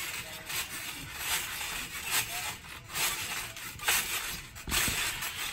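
Trampoline being bounced on: a series of short, noisy creaks and thuds from the mat and springs, about one a second, with a heavier thud near the end.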